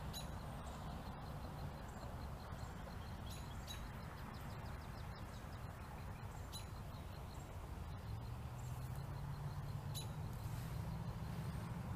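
Twilight outdoor ambience: a steady low rush with scattered short, high chirps repeating now and then. About two-thirds in, a low hum enters and slowly rises in pitch.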